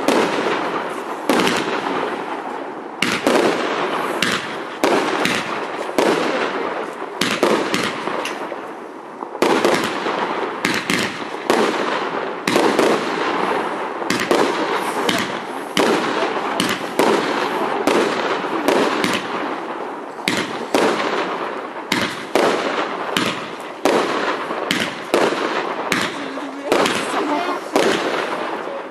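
Super Power 8609 multi-shot fireworks cake firing a continuous barrage: a rapid string of sharp bangs, a few a second, from shots launching and stars bursting, with crackling between them.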